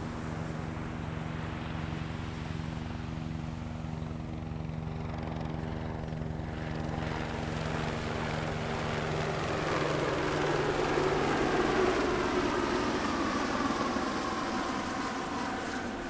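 Low-flying aircraft passing over: a steady engine drone that grows louder to its peak about twelve seconds in, its pitch falling as it goes past, then fading.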